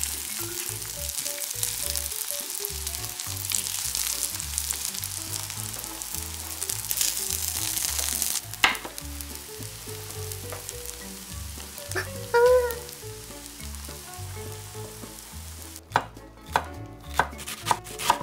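Egg-coated tofu slices sizzling as they fry in oil in a pan, with a spatula moving them. The sizzle cuts off abruptly about halfway through, followed by a few light clinks. Near the end, a kitchen knife chops on a wooden cutting board in several quick strikes.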